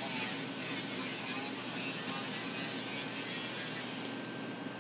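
Angle grinder with a cut-off disc running steadily while cutting through the sheet-steel inner sill of a 1973 Triumph TR6. About four seconds in it comes off the metal and the sound eases, its pitch falling briefly.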